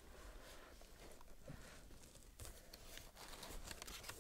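Faint rustling and light scattered knocks of a cardboard parcel and its packing being handled as it is opened.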